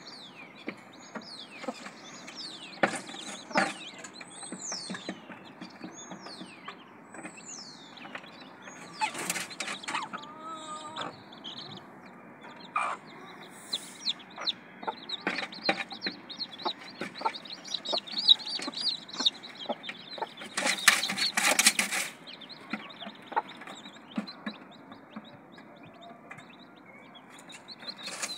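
Domestic chicks peeping in short, high, falling chirps, with a broody hen clucking low beside them and small scratching and pecking sounds in the straw. A louder noisy flurry comes about twenty seconds in.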